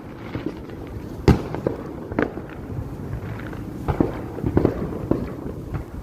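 Fireworks going off: a series of sharp bangs at uneven intervals over a low rumble. The loudest bang comes about a second in, and a quicker cluster of bangs falls near the middle to late part.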